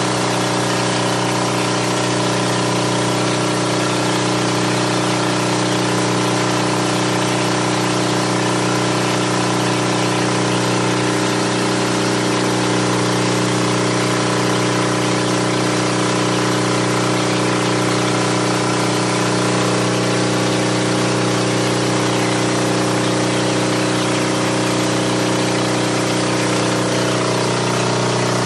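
Hot water pressure washer running steadily under test: the steady hum of its motor and pump with an even hiss over it. The pitch shifts slightly near the end.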